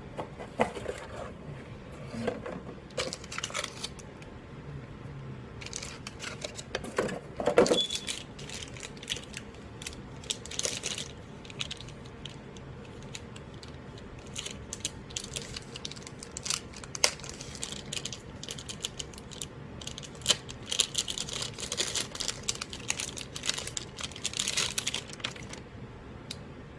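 Irregular clicks, taps and short rustles of hands handling computer parts and their packaging during a PC build.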